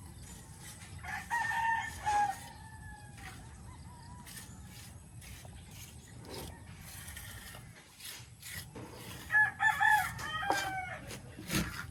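A rooster crowing twice, about a second in and again near the end, each crow a long call that falls away at its tail. Scattered light knocks, with one louder thud just before the end.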